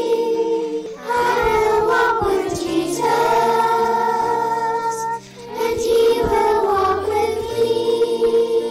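A group of children singing a slow hymn together in long held notes, over a soft instrumental accompaniment.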